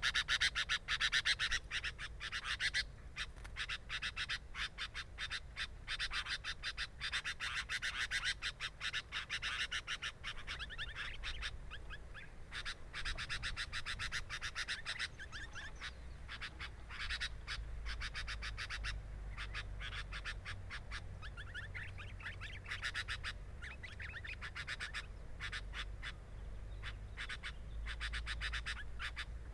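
Sooty-headed bulbul nestlings calling at the nest, a dense rapid raspy chatter of short chirps, loudest in the first ten seconds and thinner after that.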